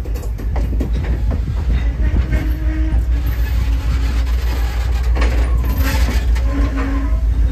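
Passenger coaches rolling past close by: a steady low rumble from the steel wheels on the rails, with irregular clicks as the trucks pass over rail joints.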